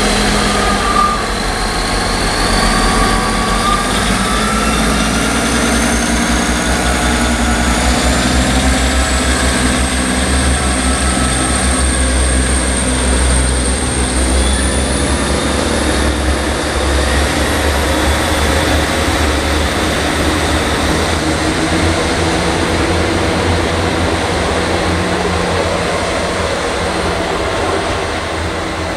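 Class 158 diesel multiple unit pulling away from a station platform: heavy engine rumble under a whine that climbs steadily in pitch as the train accelerates. It eases off toward the end as the train draws away.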